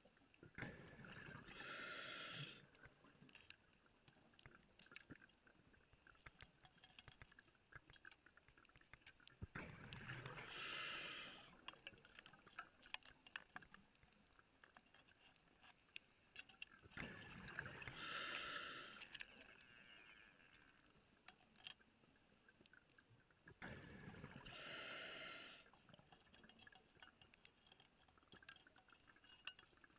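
Scuba diver's exhaled breath bubbling out of the regulator, four times about seven seconds apart, each burst lasting about two seconds. A faint steady crackle of clicks runs between the breaths.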